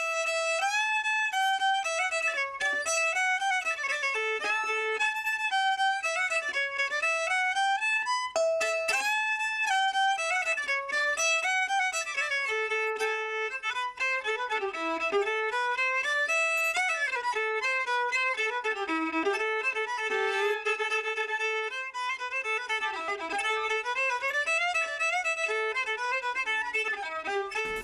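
Solo violin playing a bowed melody, a single line that slides up and down between notes.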